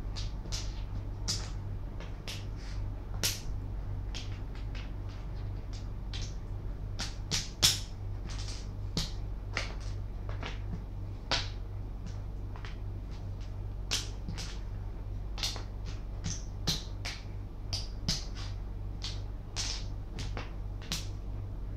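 Makruk (Thai chess) pieces, mostly the flat disc pawns, clicking as they are picked from the pile and set down on the board. The clicks are sharp and come at irregular intervals, with one louder clack about eight seconds in, over a steady low hum.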